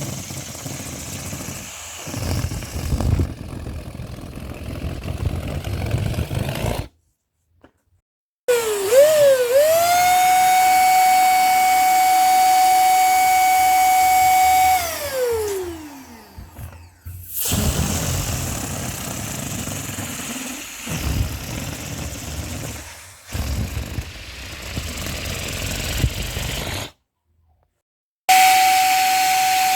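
Balloons being inflated and let down. There are stretches of rushing air, and twice a balloon squeals as the air escapes through its stretched neck: the squeal holds one steady high pitch, then slides down as the balloon empties.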